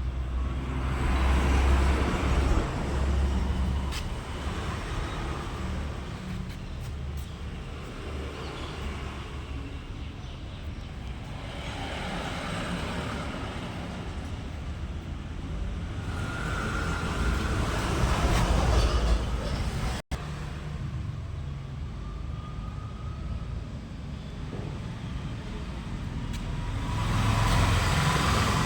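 Road traffic going by: a steady low rumble with vehicles swelling up and fading away one after another. The sound drops out briefly about twenty seconds in.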